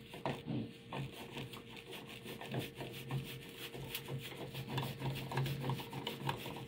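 Hand screwdriver turning a screw into a steel electrical box cover: an irregular run of small scraping clicks as the screw threads in.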